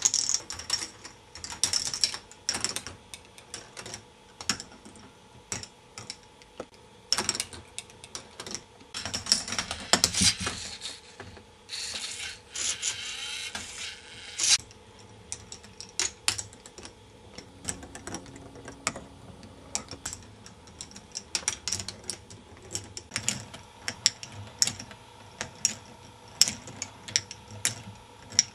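K'nex ball machine running: plastic balls clicking and rattling along plastic tracks and parts, with many sharp clicks and several longer rattling runs in the first half. A faint steady hum sits underneath.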